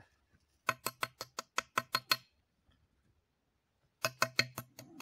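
Metal detector giving rapid runs of short, low buzzing beeps, two bursts of about eight beeps each, as it is passed over the hole. This is the low iron-target tone that goes with the reading of 02 for the iron nail just dug out.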